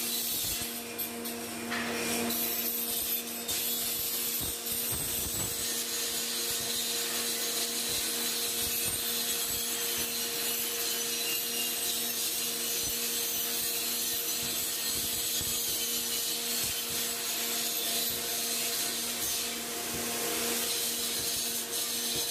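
Electric grinder running steadily under load, its abrasive disc grinding against a workpiece: a continuous scraping hiss over a steady motor hum.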